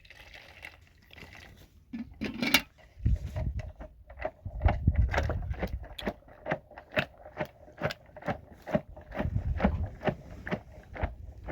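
A rapid series of sharp knocks or taps, about three a second, over low thudding, starting about three seconds in.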